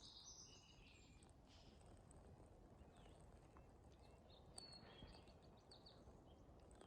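Near silence: faint outdoor background with a few faint, high bird chirps, just after the start and again a little past the middle.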